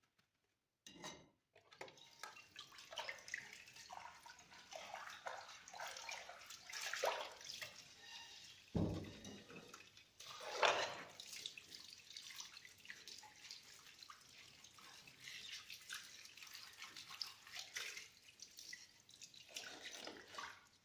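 Tap water running and splashing onto china plates in a kitchen sink as the dishes are rinsed, with a deep thump and a sharp knock about halfway through.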